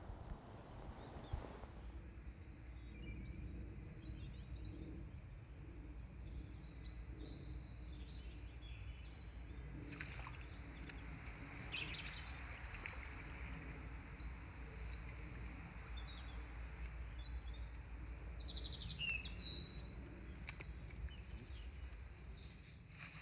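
Small birds singing and chirping in short scattered phrases over a steady low outdoor rumble, with a couple of faint clicks.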